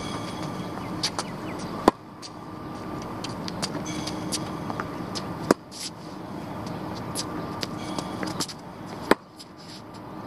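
Tennis racket striking a ball three times, evenly about three and a half seconds apart, each hit a sharp crack. A steady background hum runs underneath.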